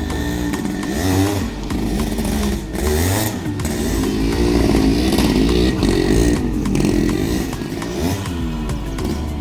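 Yamaha RX 100's two-stroke single-cylinder engine being revved again and again, its pitch rising and falling with each blip of the throttle.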